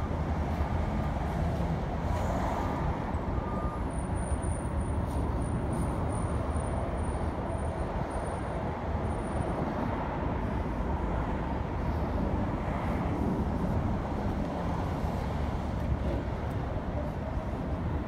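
Steady road traffic noise, a continuous low rumble of passing vehicles.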